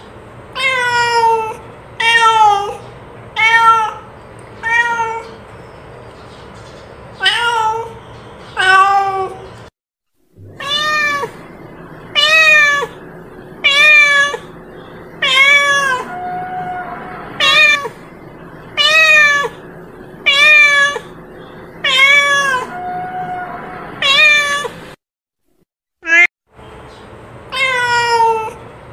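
A domestic cat meowing over and over: short, separate calls about one a second, in runs broken by two short pauses.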